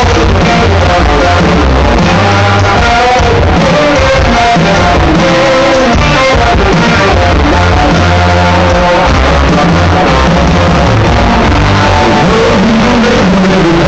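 Live country-rock band playing loud: electric guitars, bass, drums and fiddle, with a male lead vocal over them.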